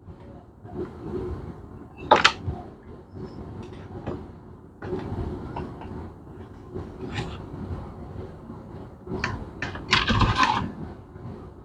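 Handling noises: scattered clicks and knocks of things being picked up and set down, with a sharp knock about two seconds in and a short clatter of knocks near the end.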